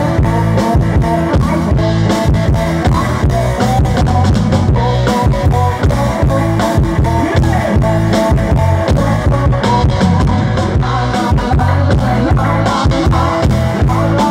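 Loud live band music with a steady drum beat, heavy bass and guitar.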